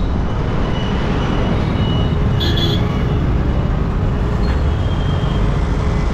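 Steady, loud rumble of road and traffic noise from a car driving through city streets, with a brief high-pitched sound about two and a half seconds in.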